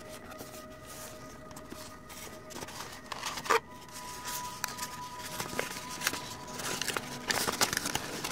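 Cardboard box flap and crinkled kraft-paper packing being handled: irregular rustling and crackling, with one louder scrape about three and a half seconds in. The crackling gets busier near the end as the paper is unfolded.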